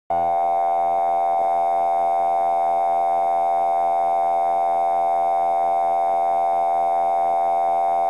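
Broadcast test-card line-up tone: one steady held pitch with a slightly buzzy edge, starting abruptly. It signals that the station has gone off air and programming is interrupted.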